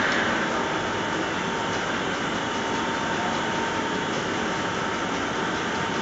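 Steady running noise of a bedding production line's fibre-batt conveyor and rollers, with a faint steady whine on top.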